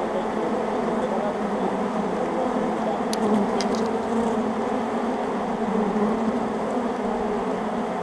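A large honey bee swarm buzzing steadily, with many bees flying close to the microphone as the swarm covers and settles onto its new hive box. A few faint brief ticks about three seconds in.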